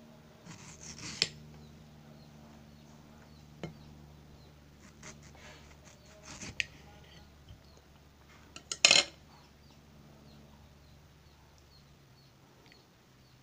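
Small kitchen knife cutting and peeling a ripe carabao mango over a plate: soft scrapes of the blade through the fruit and a few light clinks of the knife against the plate, the loudest about nine seconds in.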